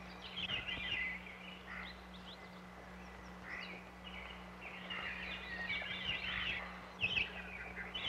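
Birds chirping and singing in short, scattered phrases over a steady low hum.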